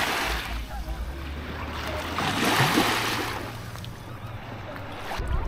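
Small lake waves washing in at the shoreline, two swells of wash about two and a half seconds apart, over a steady low rumble, with faint distant voices.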